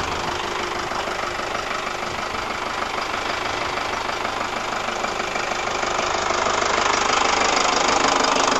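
Ford Transit's 2.5-litre four-cylinder diesel engine idling steadily, growing louder near the end as the open engine bay is approached.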